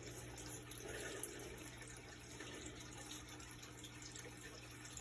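Faint scratching of a pen drawing on paper over steady low hum and hiss.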